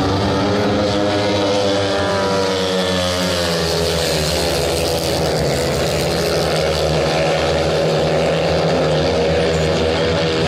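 A pack of speedway motorcycles racing, their 500 cc single-cylinder methanol engines rising and falling in pitch as the riders throttle through the bend and down the straight. Several engines sound at once, their notes overlapping.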